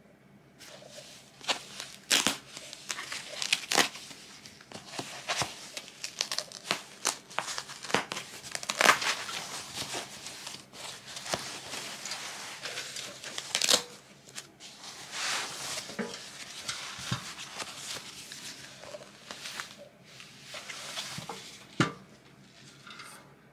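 Thin white wrapping paper crinkling and rustling as it is pulled off a newly bought item by hand, with irregular sharp crackles throughout.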